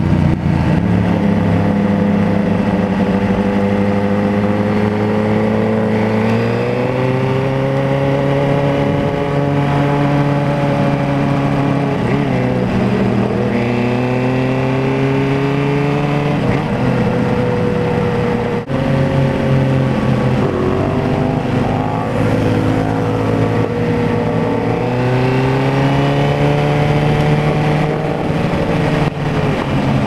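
Suzuki GSX-R750 inline-four engine running under load while riding, its note climbing in pitch and dropping back several times as the throttle is worked and gears change, over steady wind rush.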